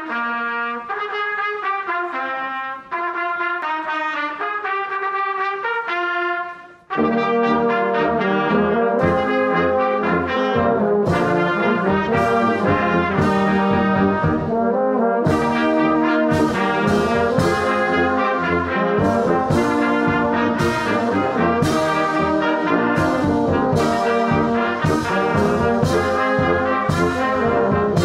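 A youth brass band playing a hymn: a few brass instruments open with a thinner melody, then after a short break about seven seconds in the full band comes in with trombones, horns and sousaphone underneath. Drum beats join a couple of seconds later and keep a steady pulse.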